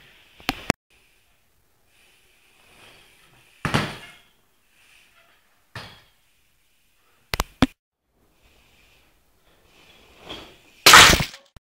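BMX bike knocking and clattering on a concrete floor as it hops and lands: a string of separate thuds and knocks, including a sharp double knock about seven and a half seconds in and the loudest landing near the end.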